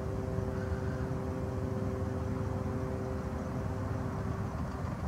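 Steady low engine drone with two steady humming tones over it; the tones drop away near the end while the rumble goes on.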